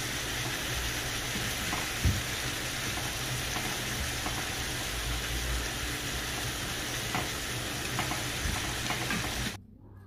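Chicken pieces frying in hot oil in a pan: a steady sizzle, with a sharp knock about two seconds in and a few lighter clicks. The sizzle cuts off suddenly near the end.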